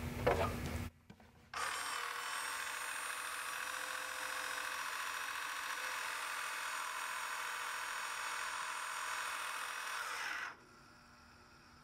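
SmartChoice GEN II water softener valve's drive motor running steadily for about nine seconds, turning the worm gear that moves the main piston to its home position as the valve self-homes after power-up, then cutting off suddenly. Brief handling noise in the first second.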